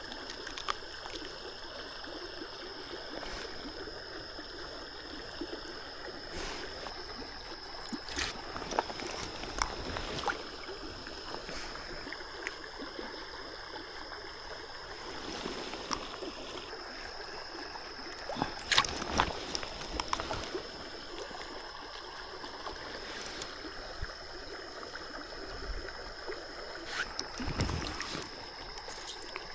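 River water flowing steadily, with a thin steady high tone underneath and several scattered knocks and clicks, the loudest a little past halfway.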